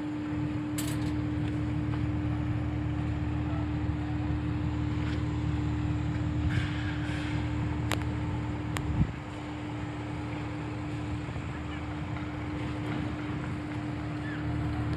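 An engine running steadily with a constant hum and a low rumble. A few sharp clicks come about eight seconds in, followed by a short knock.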